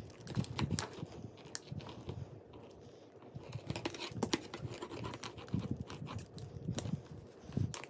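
Plastic toy rolling pin rolling a lump of Play-Doh flat on a metal tray, with soft rubbing and scattered light clicks and knocks as the pin and hands touch the tray.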